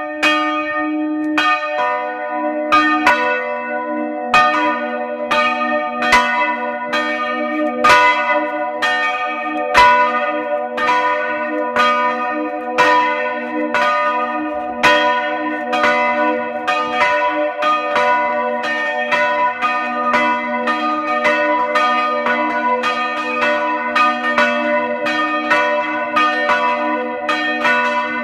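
Two church bells rung by hand, heard close up inside the belfry. They strike in a steady, rapid chime of about one to two strokes a second. The second, lower bell joins about two seconds in, and each stroke rings on into the next.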